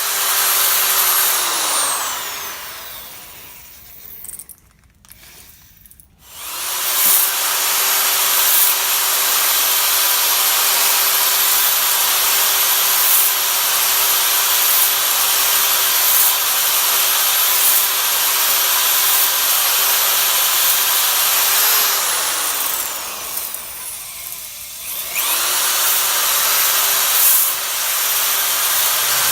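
Electric drill spinning a ball hone in a cylinder bore of an LS 5.3 engine block, with a steady motor tone over a scrubbing hiss. The drill winds down and stops about two seconds in, starts again around six seconds, runs steadily, then winds down near the end and starts once more.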